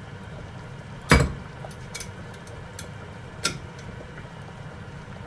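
Kitchen things knocked on a counter or stove: one loud knock about a second in and a sharper clink a couple of seconds later, with a few faint ticks, over a steady low hum.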